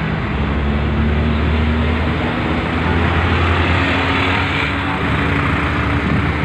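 Steady low engine hum with road and wind noise, heard from inside a moving vehicle.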